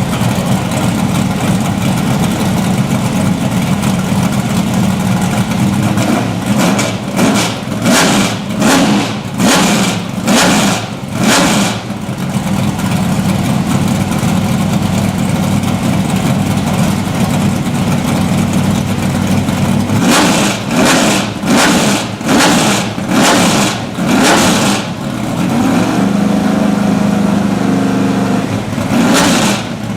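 Spice Group C prototype's 6.5-litre Chevrolet V8 idling, blipped hard in a quick run of about five revs a quarter of the way in, again in a run of about five two-thirds through, and once more near the end.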